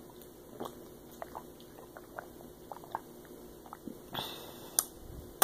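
A person gulping and swallowing a drink from a plastic bottle: a series of small wet gulps and clicks, then a brief breathy noise about four seconds in as the bottle comes down.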